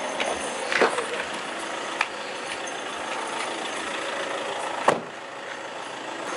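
Car interior noise as the car rolls slowly over a rough road: a steady hiss of engine and tyres, with a few sharp knocks, the loudest about five seconds in.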